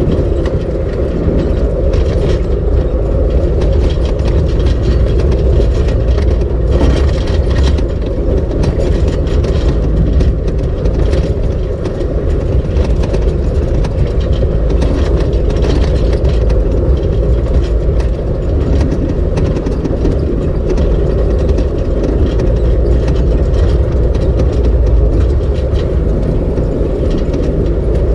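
A vehicle driving along a rough dirt and gravel trail, heard from inside the cab: a steady low rumble of engine and tyres, with scattered clicks and rattles from the rough track.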